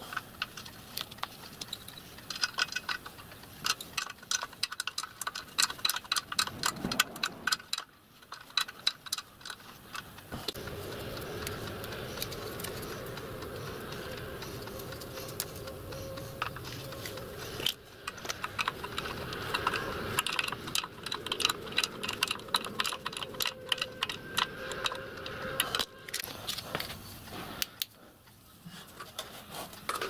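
Small brass blanking plugs clinking and rattling against metal as they are handled and screwed into the fittings of a model locomotive's copper boiler, in quick runs of sharp clicks. A steady hum sits underneath through much of the middle.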